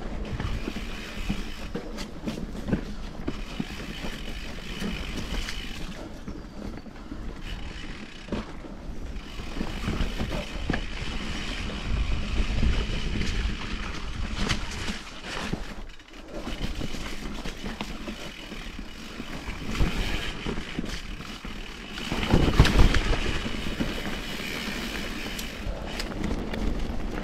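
Vitus Mythique 29 mountain bike ridden along a dirt singletrack: tyres rolling over the trail, with frame and chain rattling and many small knocks. A louder, rougher stretch of knocks comes about three quarters of the way in.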